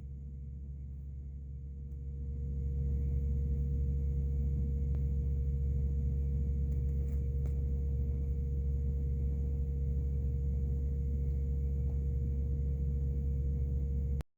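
A motor running steadily with a low rumble and a constant hum. It grows louder about two seconds in, then holds steady until it cuts off abruptly near the end.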